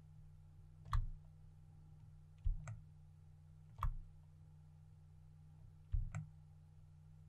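Computer mouse clicking in four short bursts, two of them quick double clicks, over a faint steady low hum.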